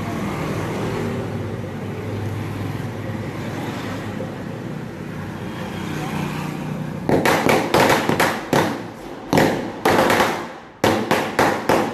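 Diwali firecrackers going off in a rapid, irregular run of sharp bangs, starting about seven seconds in, after several seconds of steady street background noise.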